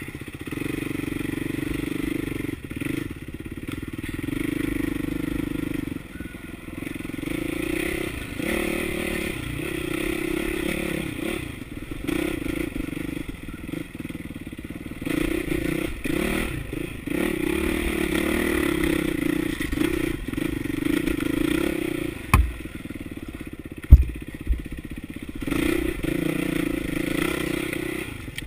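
Yamaha dirt bike engine running on a rocky singletrack climb, the throttle repeatedly opening and easing off. Two sharp knocks come about 22 and 24 seconds in, the second the loudest.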